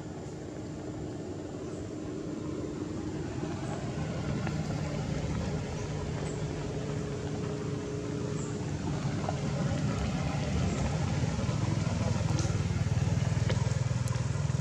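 A motor vehicle's engine running nearby, getting steadily louder over the seconds as it approaches.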